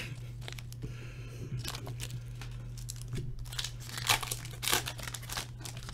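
Hockey card pack wrappers crinkling and tearing open in irregular bursts of crackle, over a steady low electrical hum.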